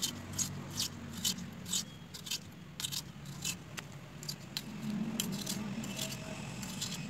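A curved iron knife cutting thin slices from a raw potato: short, crisp cuts about two a second, over a low steady hum.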